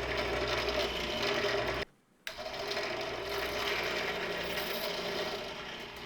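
Drill press running with its bit cutting into a steel screw, lubricated with cutting oil: a steady mechanical whir. It cuts out briefly about two seconds in, then carries on.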